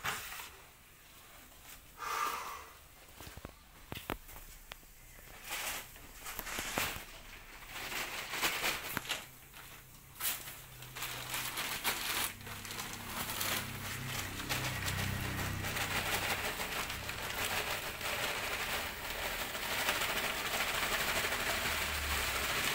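Rustling and crinkling of a woven plastic sack and loose potting medium being handled: scattered rustles and clicks at first, then from about halfway a steadier rustling hiss as the sack is handled and medium is tipped into the pot.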